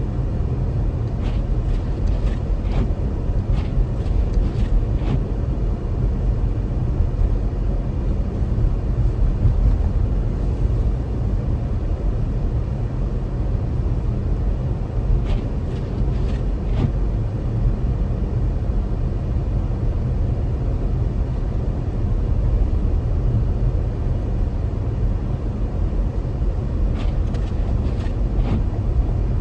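Steady low rumble of a car driving on a snowy road, heard from inside the car, with a few faint clicks here and there.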